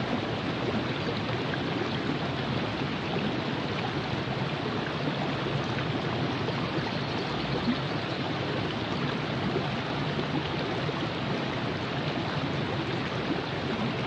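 Virgin River flowing: a steady, unbroken rush of running water.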